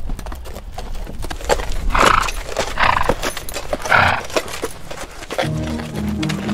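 Horses' hooves on a dirt trail, a steady run of soft thuds, with three loud breathy blasts from a horse about a second apart near the middle. Music comes in about a second before the end.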